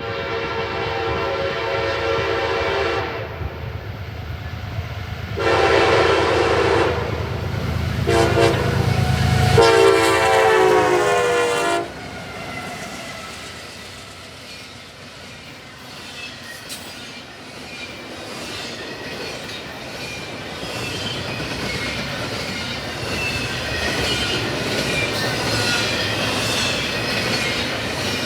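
CSX freight locomotive's multi-chime air horn blowing two long blasts, a short one and a long one, the grade-crossing signal, with the diesel engine rumbling underneath. The horn's pitch drops during the last blast as the lead engine passes. The long double-stack train then rolls by, its steel wheels rumbling and clicking over the rail joints.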